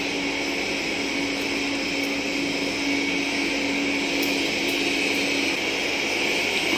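Steady whirring drone of a running machine, with a low hum under it that stops about five and a half seconds in.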